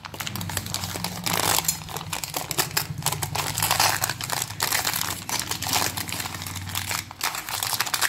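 Butter paper crinkling continuously as it is peeled from under a hardened slab of jaggery-and-spice dry kadha.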